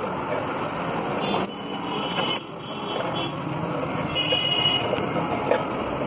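Busy roadside noise of passing traffic, with short car-horn toots about four seconds in, over the steady hiss of pav bhaji bubbling on a hot griddle.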